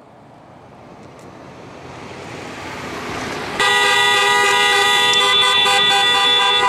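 A car approaches, its road noise growing steadily louder, then about three and a half seconds in a car horn sounds in one long, steady, held blast of several tones.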